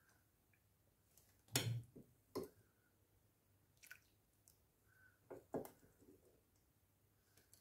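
A metal ladle scooping hot chocolate from a stainless steel pot and pouring it into a ceramic cup: a few short, quiet knocks and clinks of the ladle against pot and cup, the loudest about one and a half seconds in, with faint dripping of the liquid.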